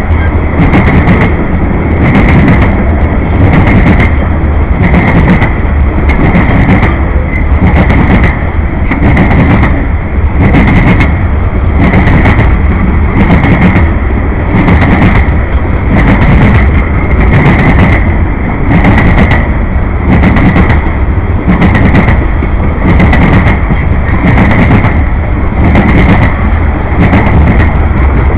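The train's cars rolling past, with a loud, steady, rhythmic clacking of wheels over the rail joints over a constant rumbling roar.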